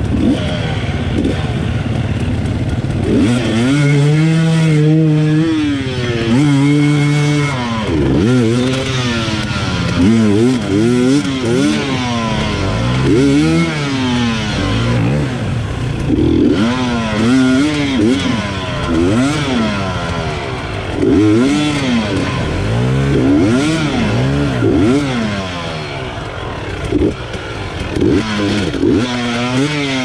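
Enduro motorcycle engine revved hard and let off again and again, its pitch rising and falling about once a second, with a stretch of held high revs early on.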